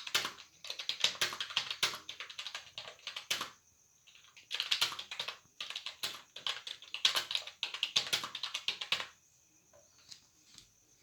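Rapid typing on a computer keyboard, keys clattering in fast runs with short pauses between them, and stopping about nine seconds in.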